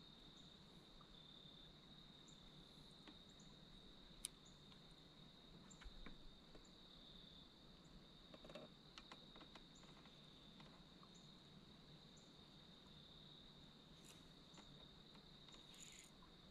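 Near silence, with a faint steady high-pitched whine and a few faint ticks.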